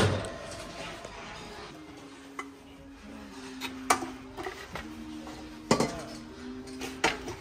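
Stainless steel woks and pans clanking against each other as they are lifted from and set back on a stacked shelf. There is a loud clank right at the start, then scattered knocks about four, six and seven seconds in.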